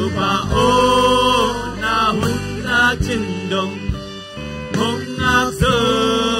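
Live worship band playing a hymn: a male lead singer holds long sung notes over acoustic and electric guitars, keyboard and drums.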